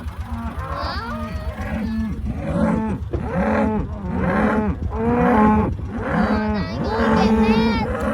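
A herd of cattle mooing, many calls overlapping one after another, over a low steady rumble.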